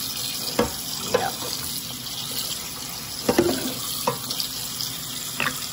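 Kitchen faucet running cold water steadily over cooked pasta and vegetables in a stainless steel colander, rinsing them to stop the cooking. A wooden spoon stirring in the colander gives a few short knocks.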